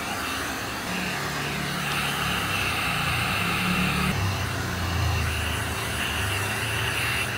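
Pet grooming vacuum running steadily while its brush head is drawn through a dog's long coat: a steady high whine over a rushing hiss, with a lower rumble that shifts as the brush moves through the fur.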